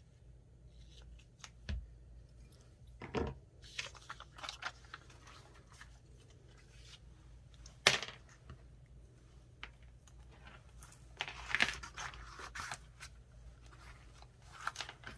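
Paper and fabric being handled at a craft table: scattered rustles, snips and small clicks, the loudest a sharp click about eight seconds in.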